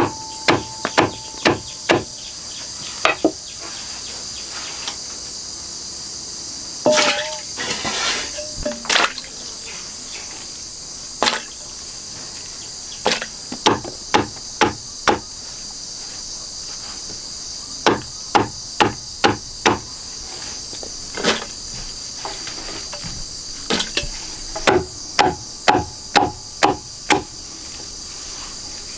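Large broad-bladed knife chopping peeled jackfruit on a wooden chopping block: sharp knocks in runs of several strokes, with short pauses between runs. A steady high-pitched drone of insects runs underneath.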